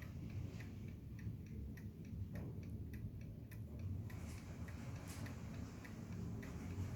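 Antique Kienzle mechanical alarm clock ticking with a quick, even beat, its movement running normally.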